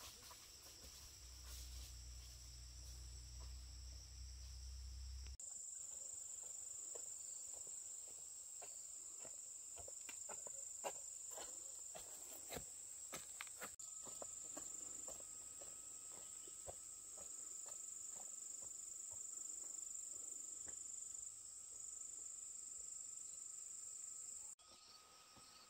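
Insects chirring in a steady, high, continuous drone, with a scatter of light clicks and snaps through the middle. A low rumble sits under the first few seconds, and the sound changes abruptly about five seconds in and again near the end.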